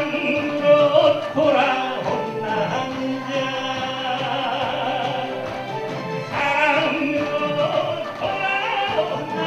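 A man singing a Korean trot song live through a handheld microphone over musical accompaniment, holding one long note in the middle.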